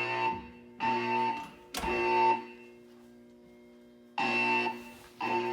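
Siemens MXL-V fire alarm speakers sounding the temporal-three evacuation tone: three buzzy half-second beeps, a pause of about two seconds, then the first two beeps of the next group.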